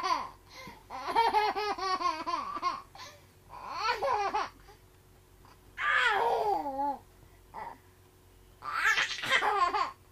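A baby laughing in four bouts with short pauses between them, the first a quick run of rapid laughs.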